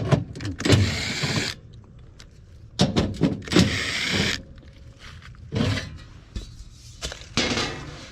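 Cordless drill whirring in short bursts: two runs of about a second and a half, then two shorter, quieter ones near the end.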